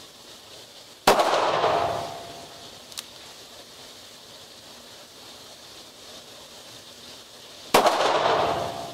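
Two shots from a Smith & Wesson 637 .38 Special snub-nose revolver, one about a second in and one near the end, each ringing on briefly in an indoor range. Between them comes a light click: the hammer being thumb-cocked for a single-action shot.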